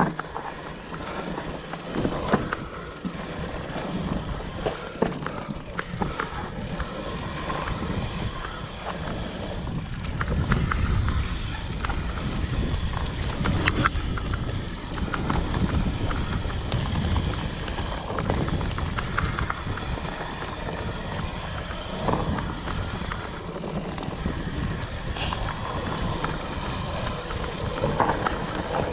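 Specialized Turbo Levo electric mountain bike riding down a rough dirt trail: continuous tyre rumble, with the bike rattling and knocking over bumps many times.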